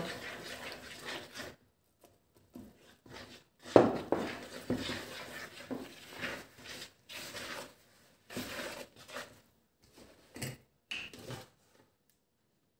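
Spoon stirring and scraping flour into water in a plastic mixing bowl to make bread dough: irregular rubbing and scraping with a sharper knock about four seconds in. The sound stops about a second before the end.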